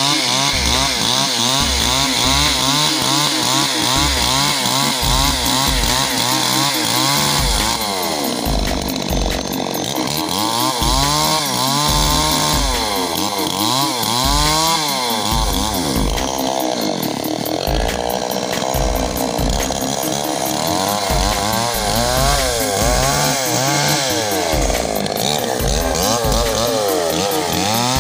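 Two-stroke chainsaw engine running loudly, its pitch rising and falling over and over.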